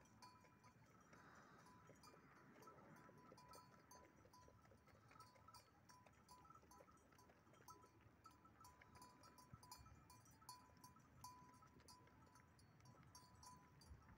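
Near silence, with faint, intermittent ringing of distant livestock bells on the grazing flock and soft scattered clicks.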